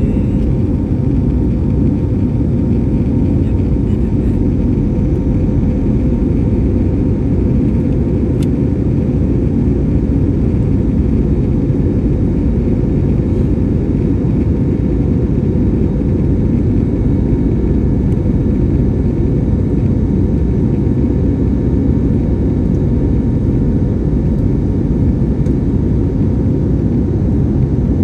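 Airliner cabin noise in flight: a steady, unchanging drone of engines and rushing air, heavy in the low end.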